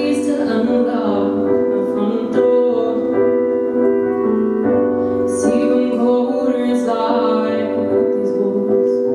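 A woman singing and accompanying herself on a Roland RD-700GX digital stage piano, playing held chords under the melody.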